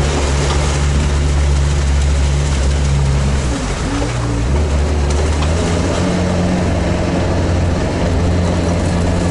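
Amphibious all-terrain vehicle's engine running under load as it wades through a river and climbs out up the bank, with water splashing at the front. The engine note drops briefly about three and a half seconds in, then picks up and rises as it climbs.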